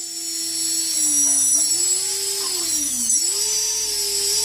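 Emax RS2205S brushless drone motor, fitted with new bearings, spinning up to speed with a high whine; its speed dips and climbs again twice.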